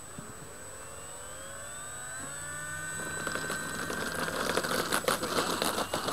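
The FMS Ranger 1220 RC plane's electric motor and propeller spooling up for takeoff: a whine rising in pitch over about three seconds, then holding steady and getting louder at full throttle as the plane rolls away. A gusty rushing noise with crackles joins in during the second half.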